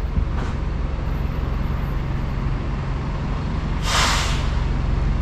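A steady low engine hum, with a short, loud hiss of air about four seconds in.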